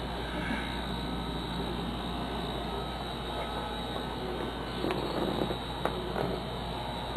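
Steady low hum and hiss of room background noise, with a few faint short knocks and rustles about five and six seconds in.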